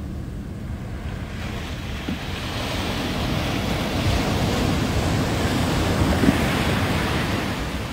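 Ocean surf breaking and washing up the beach, swelling from about a second and a half in and easing off near the end, with wind buffeting the microphone.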